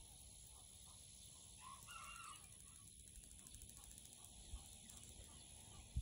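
Near-silent outdoor quiet with a faint low rumble. About two seconds in, a single short, faint bird call.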